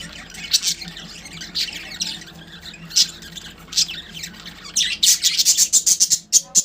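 Budgerigars squawking harshly as they fight, the calls coming thicker and faster in a quick run of sharp squawks about five seconds in, then stopping abruptly. A steady low hum runs underneath.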